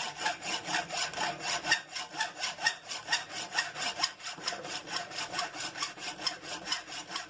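Hand saw cutting through a small aluminium bar in quick, even back-and-forth strokes.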